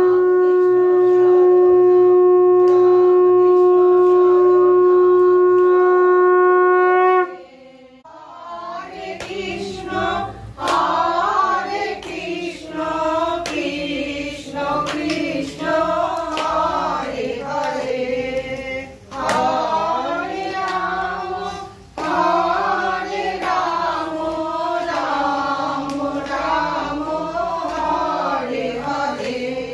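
A conch shell blown in one long, steady note that stops sharply about seven seconds in. After a short pause, voices sing a devotional song, with occasional sharp clicks.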